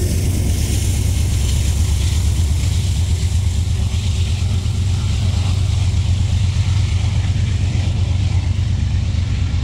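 Freight train moving away just after its rear locomotive has passed: a steady low rumble with a hiss over it that thins out near the end.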